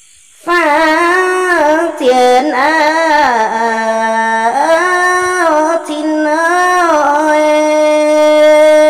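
A woman singing a Red Dao lượn folk song solo and unaccompanied, in long held notes that waver and glide between phrases, ending on one long steady note. The voice comes in suddenly about half a second in.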